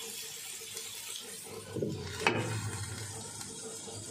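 Tofu frying in a little oil in a skillet, a steady sizzle. About two seconds in, a glass lid is set on the pan with a sharp knock.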